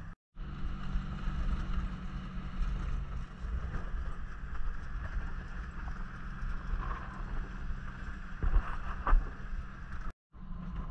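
Vehicle engine running steadily while driving, with a low rumble and steady hum, and two sharp knocks near the end.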